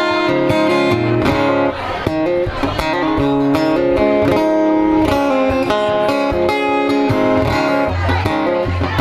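Acoustic guitar strummed live in a steady rhythm, with no singing.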